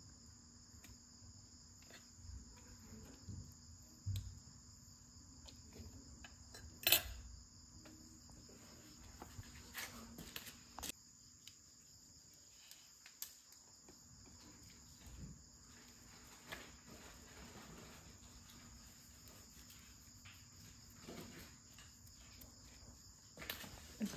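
Insects trilling steadily in the background, a constant high-pitched chorus, with scattered faint clicks and knocks, the sharpest about seven seconds in.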